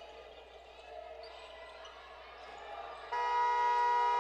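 Faint basketball-gym ambience, then about three seconds in a scoreboard buzzer sounds: a loud, steady electric tone that starts abruptly and keeps going.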